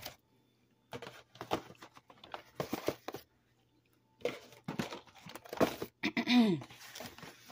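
Grocery packages being handled: cardboard frozen-meal boxes and a plastic-wrapped case of bottled water rustle, crinkle and knock in short irregular bursts. A brief voice sound falling in pitch comes near the end.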